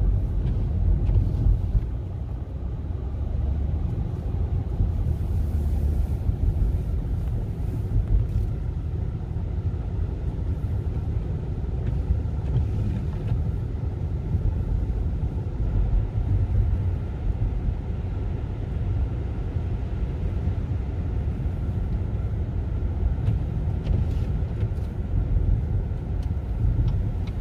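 Steady low rumble of a car being driven, heard from inside the cabin: engine and tyre noise on a snowy street.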